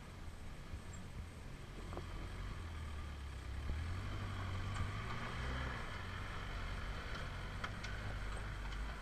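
First-generation Mitsubishi Pajero engine running with a low rumble as the 4x4 crawls down a rutted dirt track and draws near. A few sharp clicks of stones under the tyres come near the end.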